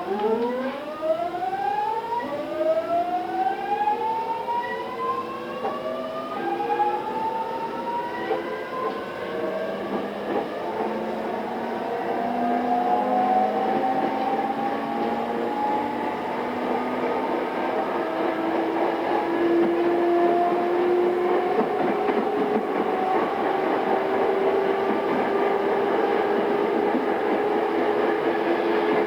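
Pre-renewal JR East E217 series train's GTO VVVF inverter and traction motors, heard inside the motor car, pulling away from a station. Several whining tones rise in pitch together and change in steps over the first ten seconds or so, then settle into one steady motor whine that creeps slowly higher as the train gathers speed, over rail and wheel rumble.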